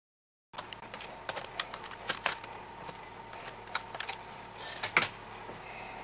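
Scattered plastic clicks and taps as the Toshiba Satellite L505D laptop's keyboard is pried up with a small screwdriver and lifted out, starting about half a second in, with a couple of louder snaps.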